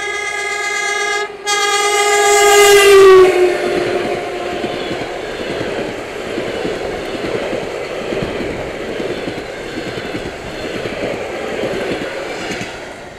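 ЭП2Д electric train's horn sounding, breaking off for a moment about a second in and sounding again, its pitch dropping just after three seconds as the train reaches the camera. The train then rushes past at speed for about ten seconds, a dense, even rolling noise from the wheels on the rails.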